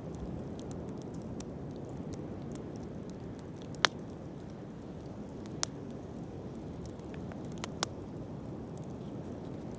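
Wood fire burning with a steady low rush and scattered faint crackles, broken by three sharp pops, the loudest about four seconds in.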